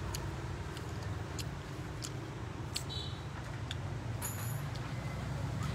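Quiet background: a steady low rumble with a few faint clicks and taps.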